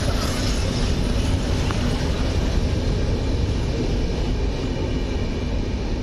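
Passenger coaches of an Indian Railways express train passing at speed: a steady rumble of wheels on rail.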